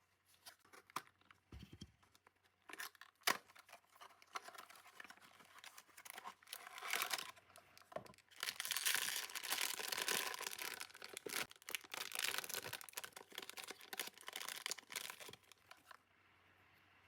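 Packaging being torn open and crinkled by hand: scattered rustles and clicks that build into a long, dense stretch of tearing and crinkling from about eight seconds in, stopping about a second before the end.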